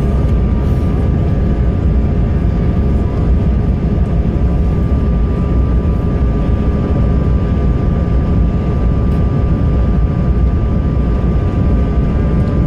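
Steady cabin noise inside an Airbus A220-300 airliner: an even roar of its Pratt & Whitney geared turbofan engines and airflow, with a steady hum held on one pitch.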